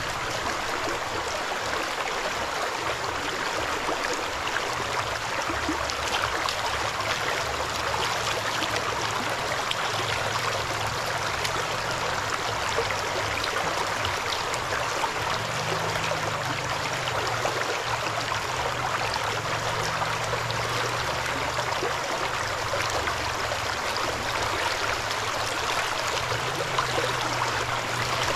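Shallow stream running steadily, with water sloshing and swirling as a gold pan is worked in the current.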